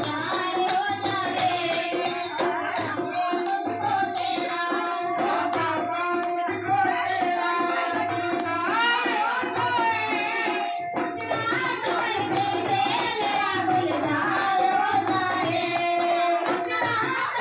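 Live Hindi devotional bhajan: a singer through a microphone over a dholak drum beat, with the gathering clapping in time.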